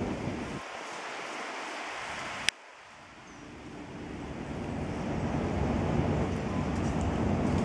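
Wind buffeting the microphone outdoors: a rushing rumble that eases for a couple of seconds and then builds back up, with one sharp click about two and a half seconds in.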